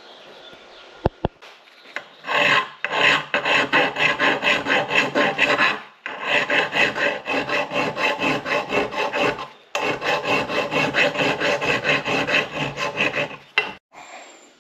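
Hand file working a metal bracket in quick, even rasping strokes, shaping the part by hand after rough grinding. The filing starts about two seconds in and stops briefly twice.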